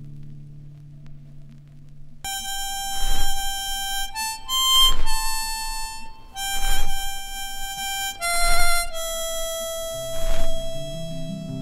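Music: a harmonica plays a slow melody of long held notes, with a short hit on the beat about every two seconds. Low guitar notes sound for the first two seconds and come back near the end.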